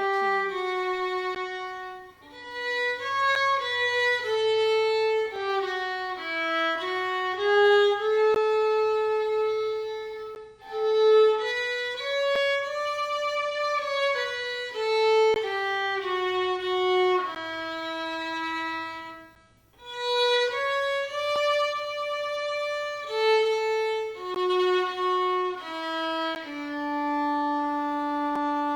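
Solo violin playing a slow melody one note at a time, with vibrato, in phrases broken by short pauses.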